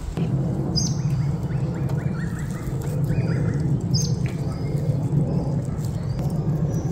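Birds chirping over a steady low hum. There is a sharp high chirp about a second in and again about four seconds in, with a run of quick repeated notes between them.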